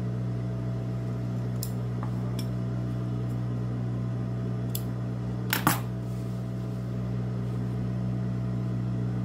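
Steady hum of an industrial sewing machine's motor running while the needle is still, with a few small clicks from handling the fabric and pins, the loudest a sharp double click a little past halfway.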